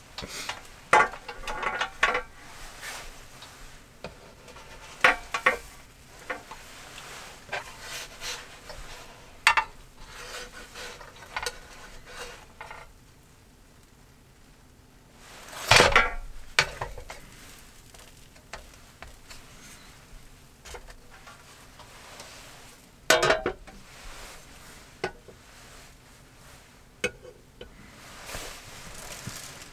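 Metal spatula scraping and tapping on an electric hot plate while a thick pancake sizzles on it and is turned over. Two louder clatters, one midway and one later, as the plate's lid is handled and set on.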